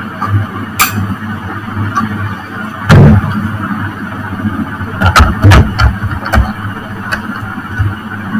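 Knocks and thumps of equipment being handled close to the microphone over a steady low hum: a heavy thump about three seconds in and a cluster of knocks between five and six and a half seconds in, with a few lighter clicks.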